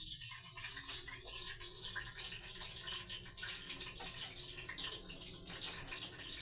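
Chicken frying in hot oil: a steady sizzle dotted with many small crackles and pops.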